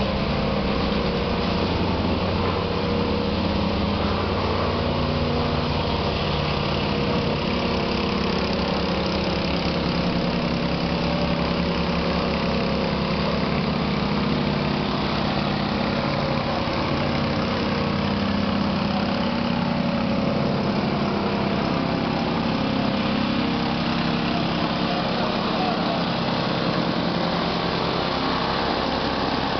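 Vibrating plate compactor's small petrol engine running steadily at working speed, the plate shaking as it compacts the dirt and gravel street surface.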